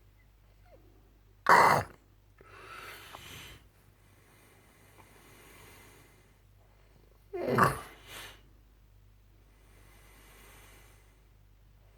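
A man snoring in his sleep: two loud, rasping snores about six seconds apart, each followed by a softer breath out.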